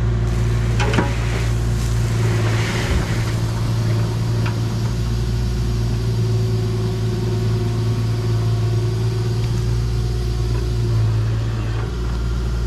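Diesel engine of an International HX620 dump truck running steadily, with a few sharp knocks in the first few seconds.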